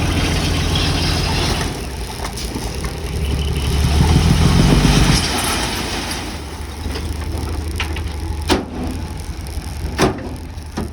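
Diesel engine of heavy construction machinery running steadily. It builds up about four seconds in, then drops back, and two sharp knocks follow near the end.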